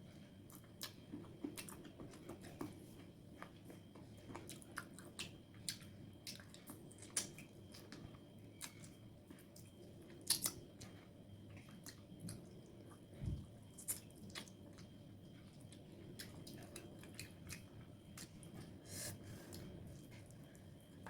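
Close-miked chewing and biting of pepper chicken, with many scattered sharp wet mouth clicks and smacks. A single dull low thump comes about two-thirds of the way through.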